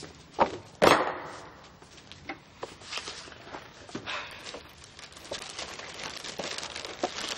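Two sharp knocks of a bowl and cereal box set down on a kitchen table, followed by cereal rattling into the bowl and scattered light clicks and rustles.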